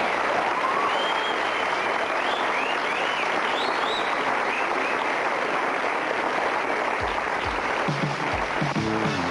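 Studio audience applauding and cheering, with whistles rising and falling over the clapping. About eight seconds in, a music cue with a stepping bass line comes in under the applause.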